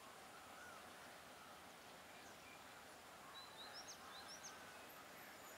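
Near silence: faint outdoor background hiss, with a few short, high, rising bird chirps a little past halfway.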